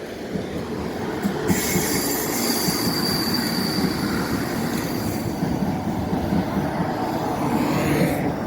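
Passenger train running on rails, heard from inside the carriage: a steady rumble and clatter of the wheels. About a second and a half in, a high wheel squeal sets in over it.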